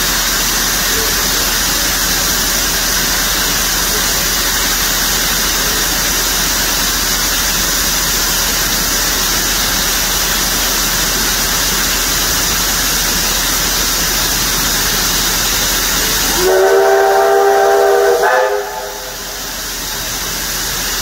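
Steam locomotive No. 1271, an NZR Ja class 4-8-2, hissing steadily as it blows off steam. Near the end its whistle sounds a chord of several notes for about two seconds, and the hiss stops as the whistle ends.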